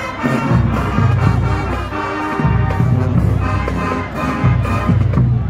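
Marching band playing full out, brass and drums, with the low brass of the sousaphones sounding in long, heavy blocks of notes.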